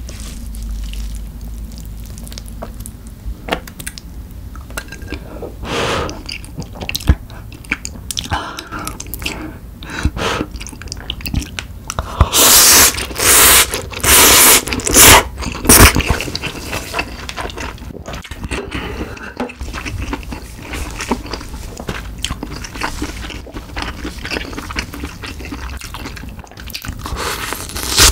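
Close-miked eating of snow crab ramyeon: chewing and wet mouth sounds throughout, with a run of loud noodle slurps around the middle.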